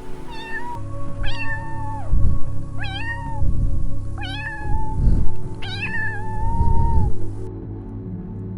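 A cat meowing about five times, the later calls longer and drawn out, over background music.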